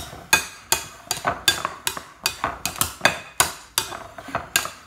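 A fork knocking against a glass mixing bowl while mashed swede is stirred and beaten: a steady run of sharp clinks, about three a second.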